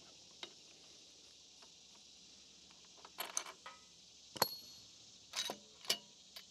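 Metal hand tools and engine parts clinking and clanking as they are handled and set down: a short rattle about three seconds in, a sharp ringing clank a little after four seconds, and two more clinks near the end.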